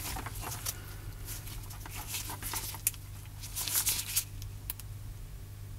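Small clicks and rustles of handling as test probes are put to an AC adapter's plug to measure its output voltage, over a steady low electrical hum.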